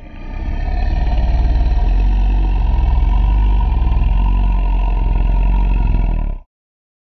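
Monster sound effect for the 1994 American Godzilla: a deep, rumbling creature vocalization held steady for about six seconds, cutting off abruptly.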